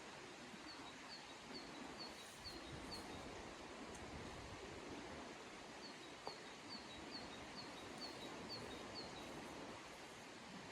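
A small bird singing two runs of short, high notes repeated about three times a second, over a steady outdoor background hiss.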